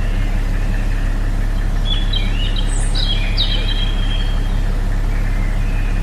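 Birds chirping over a steady low rumble. The chirps cluster from about two to three and a half seconds in, and the rumble is the loudest part throughout.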